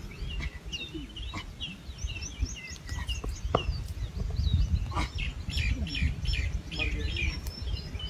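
Birds chirping and twittering: many short, quick calls, one after another, over a low rumble.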